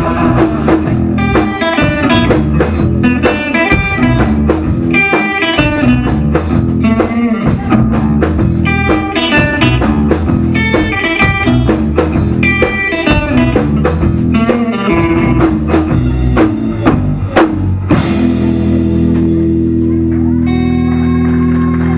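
Live rock band with electric guitar and drum kit playing an instrumental passage, a repeating guitar riff over a steady beat. About 18 seconds in, it ends on a cymbal crash and a held final chord that rings out.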